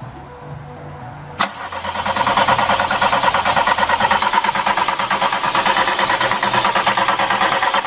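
VW Golf engine cranking on its starter motor without firing: a sharp click about a second and a half in, then steady, fast, even cranking. It won't catch because water in the spark plug leads is arcing out to the plugs and cylinder head.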